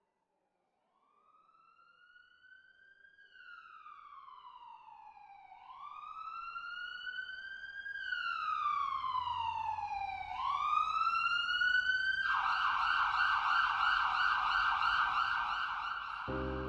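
Emergency vehicle siren that slowly wails up and down and grows steadily louder, then switches about twelve seconds in to a rapid yelp. Piano music comes in near the end.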